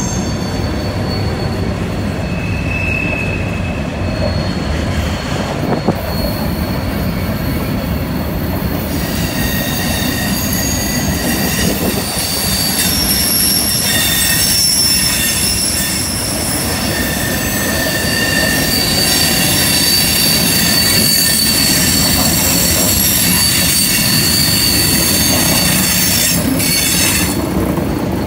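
Freight cars rolling past on a curve: a steady rumble of wheels on rail with high-pitched wheel squeal, several tones coming and going, heaviest from about a third of the way in until just before the end.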